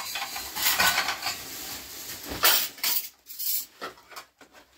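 Dishes and metal utensils clinking and clattering in a quick run of knocks, thinning to a few sparse clinks after about three seconds.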